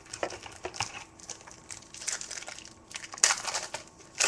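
Crinkling and rustling of a baseball-card pack wrapper and cards being handled, in irregular crackly bursts, loudest a little past three seconds in and again at the end.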